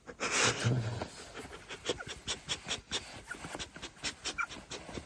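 A person snoring loudly, one long rasping snore in the first second, followed by a run of short clicks and faint squeaks.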